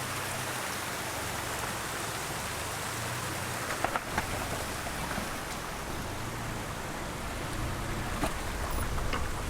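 Off-road pickup's engine running at low revs under a steady rushing hiss, with a few sharp clicks, like rock or gravel under the tyres, about four seconds in.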